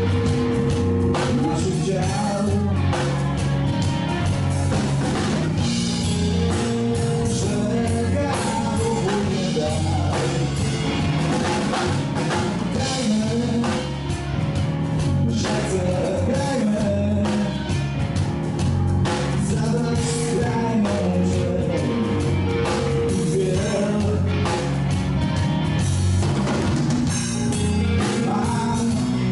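Live blues-rock band playing: electric guitar, bass guitar and drum kit with a man singing, at a steady beat.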